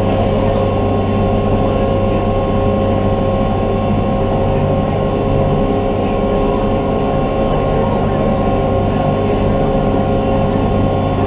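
Passenger ferry boat's engine running steadily under way, an even drone with a constant hum.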